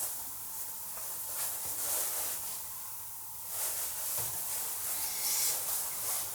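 A person breathing close to the microphone, each breath a swell of hissing noise coming every second and a half to two seconds.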